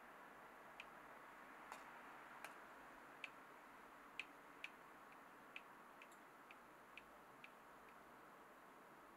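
Near silence: a faint steady hiss with about a dozen small clicks at uneven intervals, the sharpest about four seconds in.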